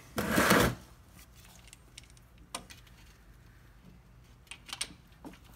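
A short loud scraping rustle in the first second, then a few separate clicks as a socket and ratchet are fitted onto the 17 mm engine oil drain plug.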